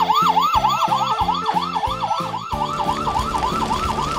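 Toy fire truck's electronic siren, a fast yelp sweeping up and down about three to four times a second, over background music with a steady beat.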